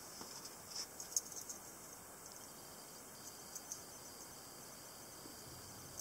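Light clicks and ball-chain rattles of a round keychain pocket knife being picked up and handled, with a sharper click about a second in and a few softer ticks around three and a half seconds.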